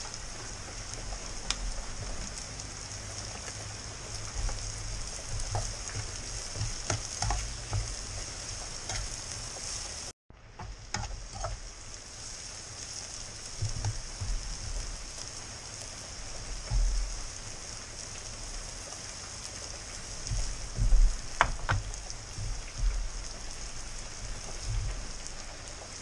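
Annatto seeds sizzling steadily as they fry in oil in a frying pan, with a metal spoon stirring and clinking against the pan now and then. The sound cuts out for a moment about ten seconds in.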